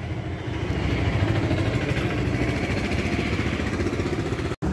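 A Bajaj scooter's single-cylinder engine idling steadily, cut off abruptly near the end.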